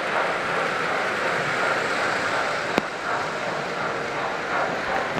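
Model electric trains running on the layout's track: a steady rolling rumble and whir, with one sharp click a little past halfway.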